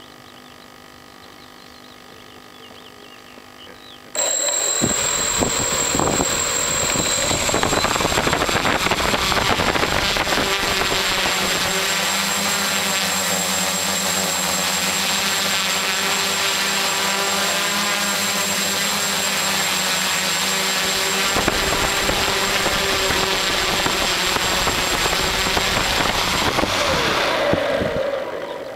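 AeroQuad quadrocopter's four propellers and motors spinning up suddenly about four seconds in, running loud and steady with a high whine while it takes off and flies. Near the end the motors wind down as it lands.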